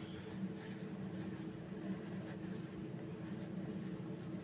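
Faint soft rustling of polyester fibre stuffing being pushed by fingers into a small crocheted yarn piece, over a steady low hum.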